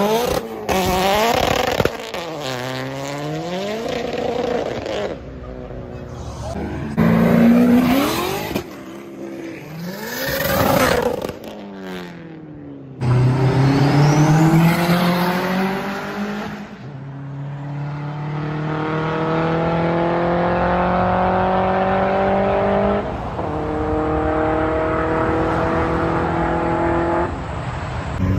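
Modified performance car engines revving and accelerating hard, in a run of short clips. First come quick revs rising and falling in pitch, then a long pull with the engine note climbing and dropping back twice at gear changes.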